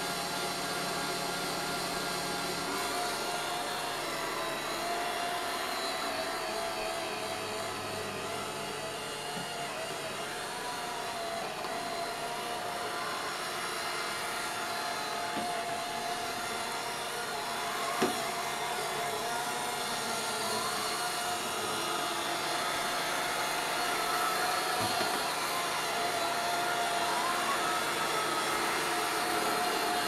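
Home Hero robot vacuum running steadily over carpet, a continuous whirring hum with a steady tone. A single sharp tap comes about halfway through.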